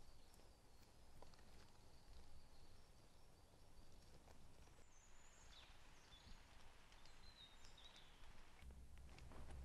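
Near silence: faint forest ambience, with a few soft high bird chirps about halfway through.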